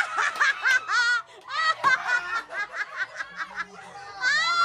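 A group of children and adults laughing and squealing in short, high-pitched bursts, with some shouted words mixed in.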